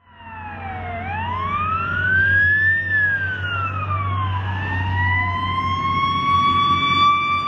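Fire department emergency vehicle siren wailing, its pitch sweeping up and down and then climbing slowly to hold steady, over a steady low engine rumble.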